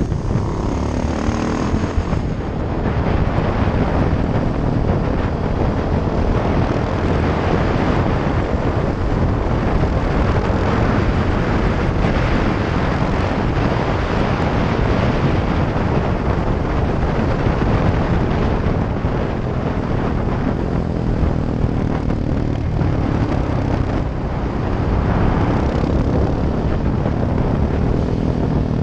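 KTM 690 SMC R single-cylinder engine with a Sebring exhaust and no dB-killer, running steadily under way, heard on board with heavy wind noise over the microphone.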